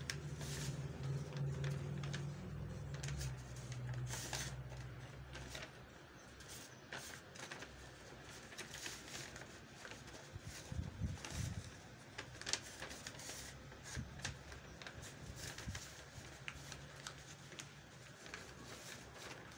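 Brown khaki (kraft) paper rustling and crackling as hands fold and handle a paper bag, with irregular sharp crinkles throughout. A steady low hum runs under the first five seconds or so.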